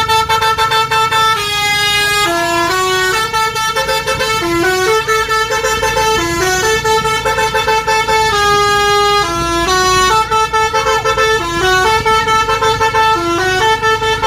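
Indonesian bus 'telolet' basuri horn, a multi-tone electric air horn, playing a melody: held notes that step up and down between a few pitches, broken by quick runs of short repeated toots.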